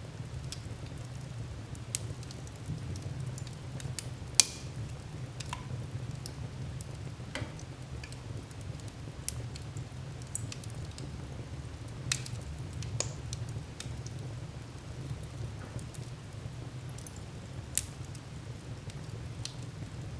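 Wood fire crackling in a fireplace: irregular sharp pops and snaps over a steady low rush of burning, with a few louder pops, the loudest about four seconds in.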